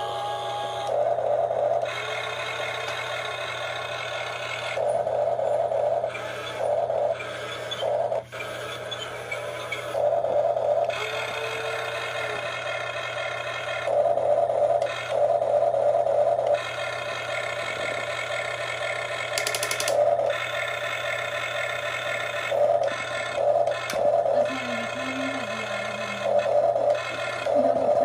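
Electric gear motors of a Huina toy RC excavator whining in repeated bursts, each from half a second to about two seconds long, starting and stopping as the boom and bucket are worked. A steady low hum runs underneath.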